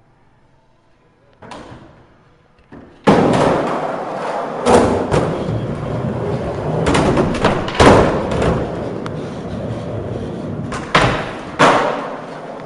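Several heavy thumps over a loud, rough, steady rumble that starts suddenly about three seconds in, after a short quiet spell with two light knocks.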